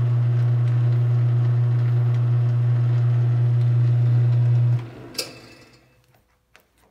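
South Bend 9A metal lathe running under its 3/4 horsepower, 1725 RPM Grizzly electric motor, a steady low hum. About five seconds in it is switched off: the hum cuts out with a click and the lathe winds down to quiet within about a second.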